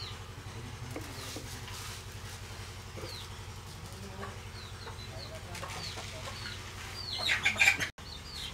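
Chickens clucking, with scattered short high chirps and a louder burst of calls about seven seconds in, over a steady low hum.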